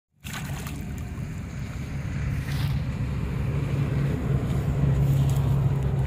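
A steady low motor hum under an outdoor hiss, slowly growing louder.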